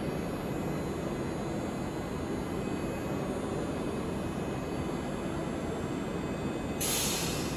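Steady low rumble of tram-stop background noise, with a short, sharp hiss near the end.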